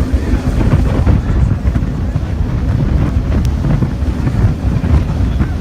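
Heavy wind buffeting the microphone aboard a jet boat under way, over the rush of water and the boat's engine.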